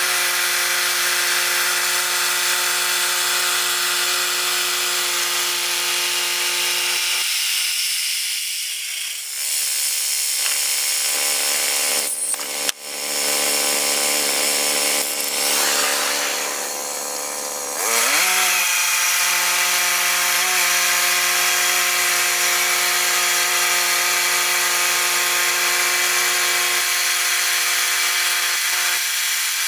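Woodland Mills portable band sawmill running, its engine driving the band blade through a log. The engine note drops a while about a third of the way in, then climbs back up a little past halfway.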